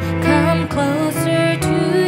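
Background music from a song, with notes held and changing in pitch; no harvester sound is heard.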